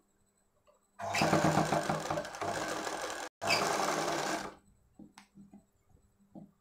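Black domestic sewing machine stitching a binding strip onto fabric, in two runs, the first about two seconds long and the second about a second, with a brief stop between. A few faint clicks follow near the end.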